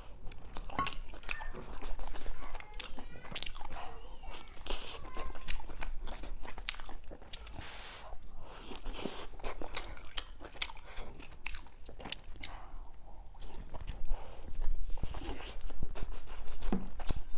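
A person eating close to the microphone, biting and chewing food with many short, irregular wet clicks and crunches.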